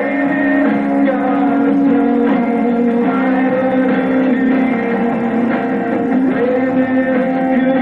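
Live band playing a song, with strummed acoustic and electric guitars over sustained chords. The sound is steady and full, and muffled, with little treble.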